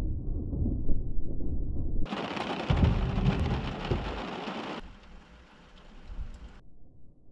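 Thunder rumbling low and rolling, loudest in the first half and dying away. A hiss of rain joins it suddenly about two seconds in and cuts off about a second before the end.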